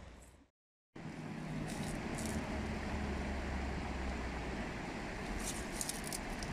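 Small engine of a red three-wheeled mototaxi running steadily with a low hum, under a few light crackles. The sound drops out for a moment just under a second in.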